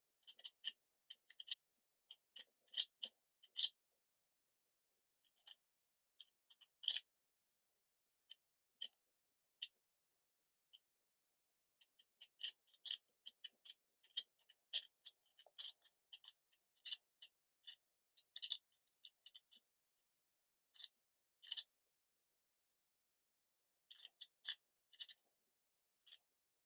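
Plastic clicking of a 4x4 speed cube's layers being turned by hand, in quick irregular runs of clicks with short pauses between them.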